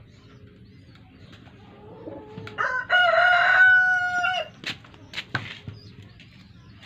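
A rooster crows once: a short rising start, then a steady, loud held note of about two seconds that breaks off about four and a half seconds in. A few light knocks follow.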